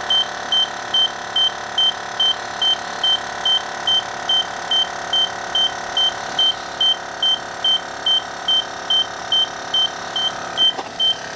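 Lincoln Mark VIII air-suspension compressor running steadily as it fills an air spring, under the short, even beeps of a Ford Super Star II tester, about two and a half a second. The beeps are still pulsing, so the car has not yet reached trim height; they go solid once it does. A click near the end.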